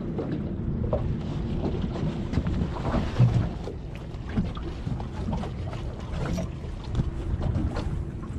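Wind buffeting the microphone and water slapping against a small boat's hull, with scattered knocks and a louder thump about three seconds in, over a faint steady hum.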